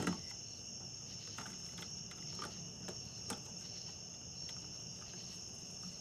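Steady high-pitched trilling of crickets, with a sharp click at the start and a few soft clicks and taps of plastic fuel pump parts and wiring being handled.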